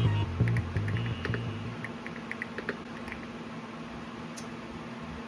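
Mechanical keyboard (Hummingbird 68 with an aluminium case and HE Clear switches) being typed on: irregular, fairly sparse keystroke clicks. Background music fades out in the first couple of seconds.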